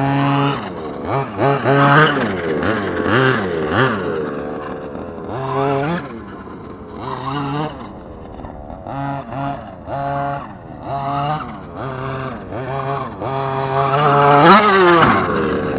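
Small two-stroke gas engine of a Redcat Rampage MT V3 1/5-scale RC monster truck revving up and dropping back to idle again and again as the truck accelerates and turns on dirt. Its loudest, highest rev comes about 14 seconds in as it passes close.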